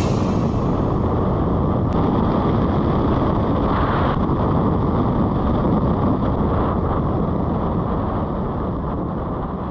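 Steady wind noise buffeting the microphone of a motorcycle rider's action camera at road speed, with the engine of a Suzuki SV650, a 645 cc V-twin, running underneath. The sound eases off slightly toward the end.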